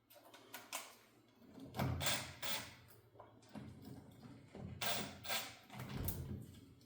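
Metal parts of a backhoe hydraulic control valve and hand tools being handled during disassembly: irregular clinks, knocks and scrapes.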